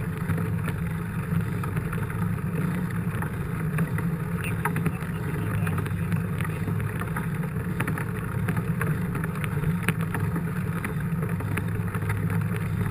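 Mountain bike rolling along, heard through a handlebar-mounted camera: a steady low rumble of tyres and wind on the microphone, with frequent small rattling clicks.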